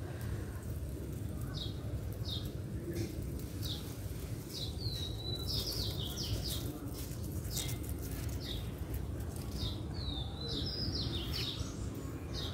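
Small birds chirping, many short high calls and slurred notes repeated throughout, over a steady low background rumble.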